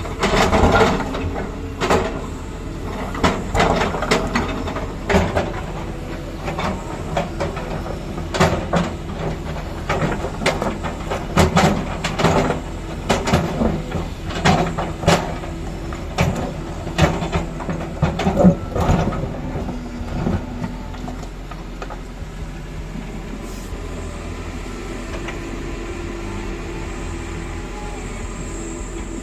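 Excavator's diesel engine running steadily, with frequent irregular knocks and clatter from its digging work that thin out about twenty seconds in, leaving the engine drone.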